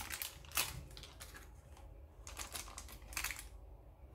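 A small plastic tub of diced cheese being handled on a tabletop: scattered light clicks and taps of the plastic and the cubes shifting inside, with small clusters about two and a half and three seconds in.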